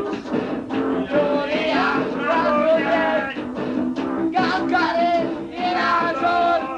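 Punk rock band playing, heard through a lo-fi dictaphone recording with the top end cut off.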